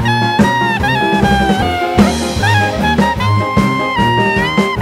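Background music: an upbeat jazz-swing instrumental with a lead melody over a steady beat.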